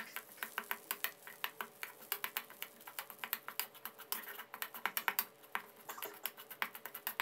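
Metal spatula stirring and breaking up shrimp paste as it toasts in a little oil in a metal wok, making a quick, irregular run of light clicks and crackles.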